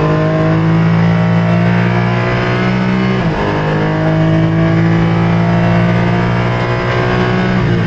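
Porsche Cayman GT4's flat-six engine at full throttle, heard from inside the cockpit: the pitch climbs steadily through a gear, drops with an upshift about three seconds in, then climbs again until another upshift just before the end.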